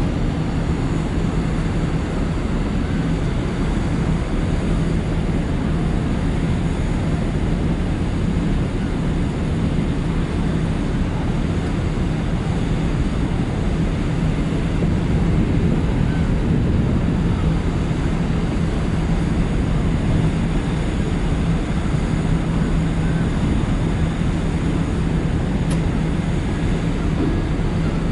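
Large car ferry under way: a steady low drone from the ship's engines and machinery, with a constant low hum and a rushing noise that does not change.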